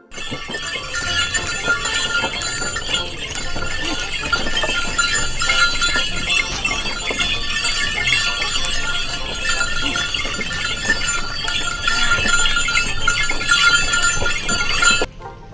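Loud, dense chorus of animal calls that cuts in abruptly and cuts off abruptly near the end.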